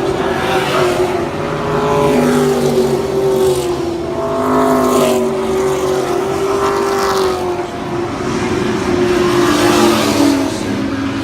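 Several race car engines running together around a small track, their pitch rising and falling as the cars accelerate and pass.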